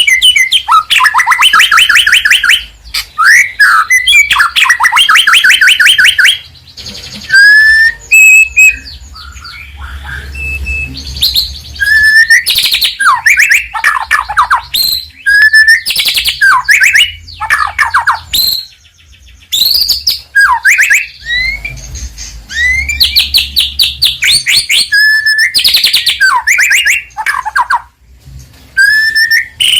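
White-rumped shama (murai batu) singing a loud, varied song: runs of rapid repeated trilled notes alternating with single whistled upslurs, broken by short pauses.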